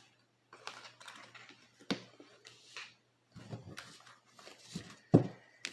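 Scattered light clicks and taps, with a sharper knock about two seconds in and the loudest one near the end, over a faint steady hum.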